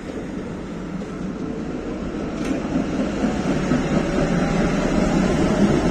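Electric tram running on street rails as it approaches and passes close by, its rumble growing louder, with a single sharp click about two and a half seconds in.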